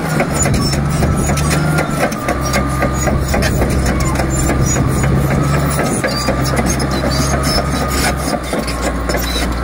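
Komatsu D85EX crawler dozer's diesel engine running as the machine travels on its steel tracks, with a constant clatter and squeak of track links. The engine note steps up and down in pitch a few times.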